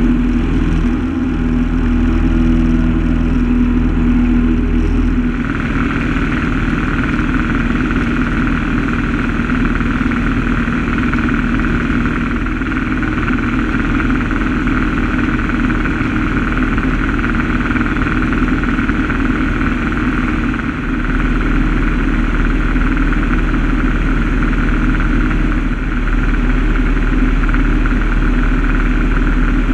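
Single-engine light aircraft's piston engine and propeller heard from inside the cockpit during takeoff and climb-out, a loud continuous drone. About five seconds in the sound changes abruptly from a steadier pitched hum to a rougher, noisier drone with more hiss, which then holds steady.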